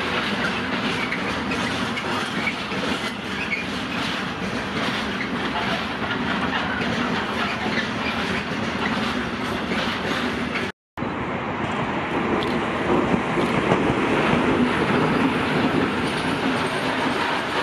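Freight trains rolling past close by: steady wheel-on-rail rumble with clattering over the rail joints, first an SBB Cargo class 482 electric locomotive and its intermodal wagons, then, after a sudden cut about eleven seconds in, a DB class 189 electric locomotive, a little louder.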